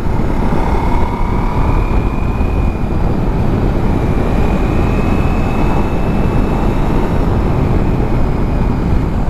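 Wind rushing over the microphone at riding speed on a Ducati Multistrada V4S, with the motorcycle's V4 engine running underneath. A faint engine tone rises and falls a little a couple of times.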